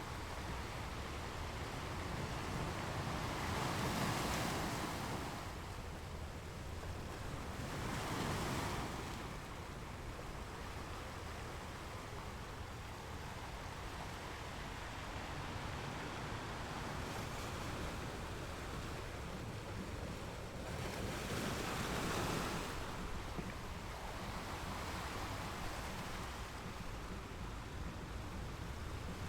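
Ocean waves washing onto a beach: a steady low rush of surf, with three louder waves breaking about 4, 8 and 22 seconds in.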